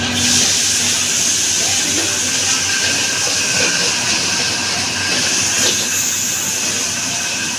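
Steady loud hiss of pork pieces sizzling in hot oil in a wok over a gas wok burner, stir-fried with a metal spatula that scrapes lightly a few times.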